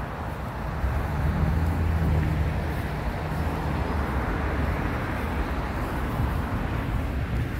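Street traffic: cars and a pickup truck driving past on a multi-lane road, with a low engine hum swelling as a vehicle passes close, about one to three seconds in, over steady tyre and road noise.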